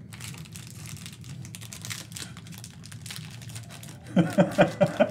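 A stack of freshly unwrapped cardboard trading cards being shuffled and flicked through by hand, a run of quick papery clicks and rustling.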